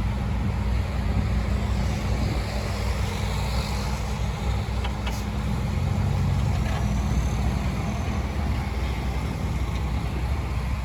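Heavy diesel engine of earthmoving machinery running steadily with a constant low hum.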